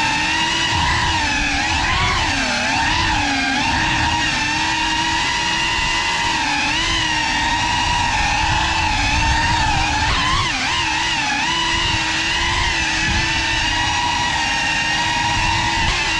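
Geprc Cinelog35 cinewhoop FPV drone in flight, its motors and ducted propellers giving a steady, high-pitched whine. The pitch wavers up and down with throttle, with quick swoops about two seconds in and again around ten seconds in.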